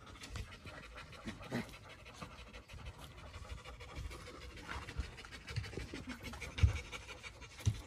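Golden retriever panting steadily, with light scratching and scraping throughout and a couple of louder knocks near the end.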